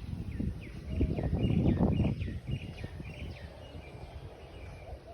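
Small birds chirping: a scatter of short, quick chirps that slide down in pitch. Under them is a louder low rumbling noise, heaviest in the first two seconds and easing off after.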